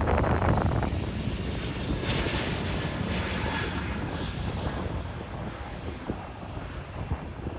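Airbus A320-family jet airliner at takeoff power, its engines rumbling as it runs down the runway and lifts off. The sound is loudest at first and slowly fades as the jet moves away, with a higher hiss joining in about two seconds in.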